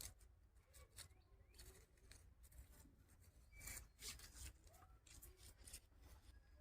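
Near silence, with faint scattered small clicks and brief rustles.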